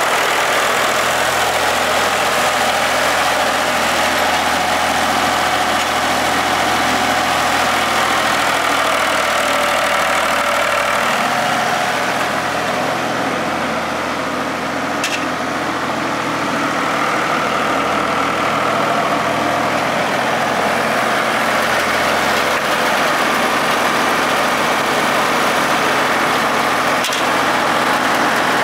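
Ford 4600 tractor's three-cylinder engine running steadily while the tractor drives slowly across gravel, a little quieter for a few seconds in the middle.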